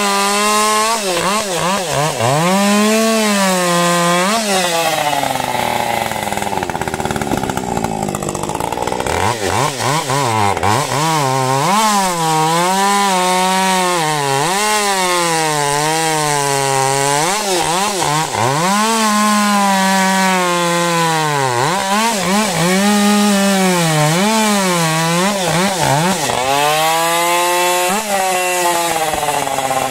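Ported Husqvarna 550 XP Mark II, a 50 cc two-stroke chainsaw, running at high revs while bucking firewood. Its pitch sags and recovers every couple of seconds as the chain loads in the cut, with one longer, deeper sag about six to nine seconds in.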